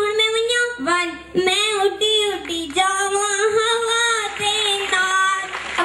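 A girl's voice singing into a microphone, long held notes that waver in pitch, with no words spoken.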